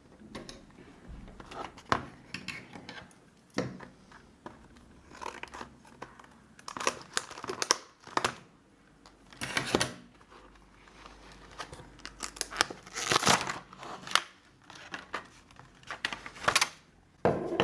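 Power bank packaging being opened by hand: irregular crinkling and tearing in short bursts, with a few sharp clicks and quiet gaps between.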